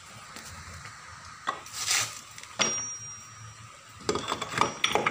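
Steel gearbox parts (final-drive gears and shaft) clinking and knocking against each other while being handled and positioned: a few separate metallic knocks, then a quicker cluster near the end.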